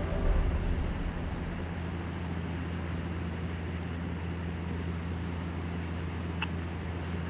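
Light aircraft's engine and propeller droning steadily, heard from inside the cabin. A single short beep near the end comes from the radio-tracking receiver picking up a collar signal.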